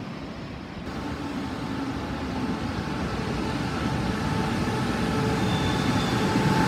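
Taiwan Railway passenger train running through an underground station without stopping, its rumble and a steady whine growing steadily louder as it approaches.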